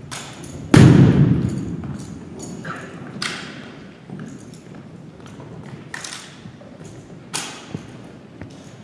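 Sharp slaps and thuds of an exhibition rifle drill routine, a drill rifle being tossed, caught and handled, echoing in a gymnasium. The loudest is a heavy thump about a second in that rings on for about a second; a few lighter strikes follow.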